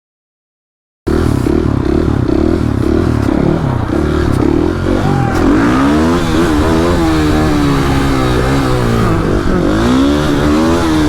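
Silent for about the first second, then a single-cylinder dirt bike engine running and revving, its pitch rising and falling over and over as the throttle is blipped.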